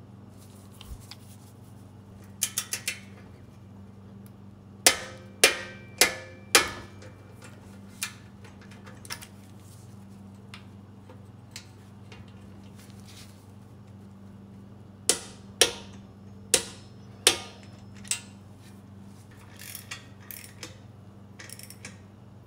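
Click-type torque wrench tightening exhaust flange bolts to 180 in-lb: a quick run of ratchet ticks, then two groups of four sharp metallic clicks as the wrench reaches its set torque, with lighter metal rattling near the end. A steady low hum runs underneath.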